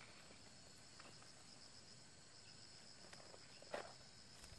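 Faint, steady high-pitched chirring of insects, with one soft click near the end.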